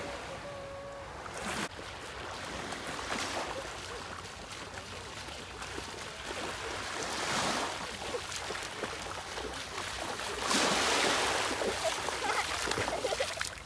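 Small waves washing onto a sandy beach, with louder splashing of feet running through shallow seawater in the last few seconds.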